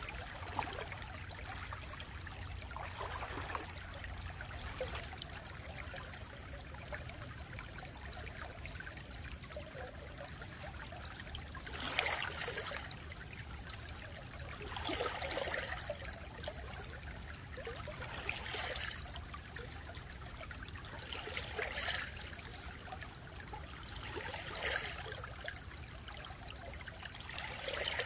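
Small shallow stream flowing and gurgling over its bed in a steady rush. Through the second half the gurgling swells louder about every three seconds, over a low steady rumble.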